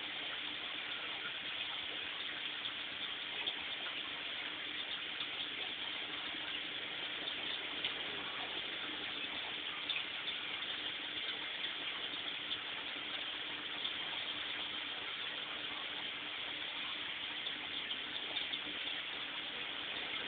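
Steady splashing and gushing of water pouring into a koi aquarium from the filter return, churning up bubbles, with a steady hum underneath.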